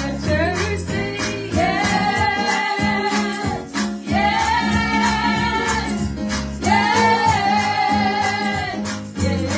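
Two women singing a gospel song into microphones in three long phrases with held notes, over an accompaniment of steady low notes and a regular beat.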